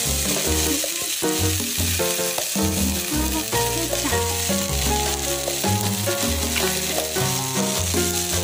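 Tempe sizzling in oil in a wok as it is stirred with a metal spatula, under background music with a bass line.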